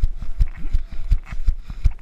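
A runner's footsteps, heavy low thuds about three a second, landing on wet, muddy ground as the runner crosses the finish line.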